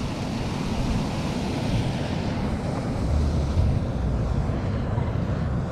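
Steady rush of churning water along the bank, with wind buffeting the microphone in uneven low gusts, one stronger gust about three seconds in.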